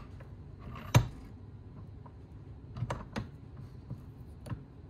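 A handful of sharp clicks and knocks as a chainsaw crankcase clamped in a vise and the tools at it are handled, the loudest about a second in, with a few more spread over the rest.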